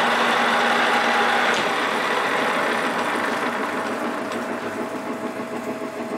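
Metal lathe running with a tangential tool holder's cutter taking a cut on a metal workpiece, a dense machining noise over the steady hum of the lathe's drive. The noise is loudest for the first two seconds, then eases off gradually.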